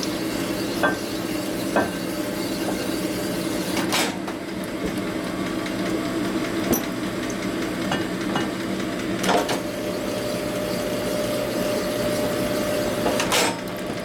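Bore-honing machine running steadily, its hone spinning inside a bore of an aluminium Harley Evolution crankcase half as the case is worked back and forth on it, taking the bore out a little further to size. Several sharp clicks and knocks from the case against the tooling, the clearest about four, nine and thirteen seconds in.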